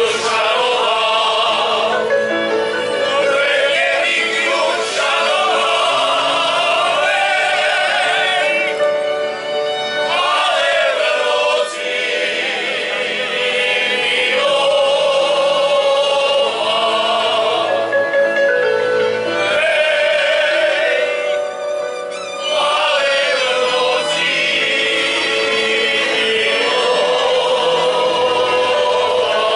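Men's folk choir singing a Moravian folk song unaccompanied-style in long held notes with vibrato, phrase after phrase with brief breaks between them.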